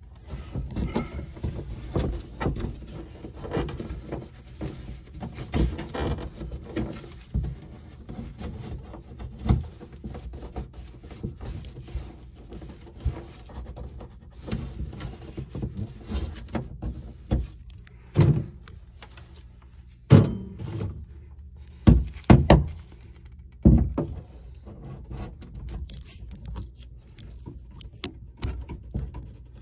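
Water supply hose with a brass fitting being pulled through a hole in a cabinet wall: irregular rubbing, clicks and handling noise, with several sharper knocks past the middle.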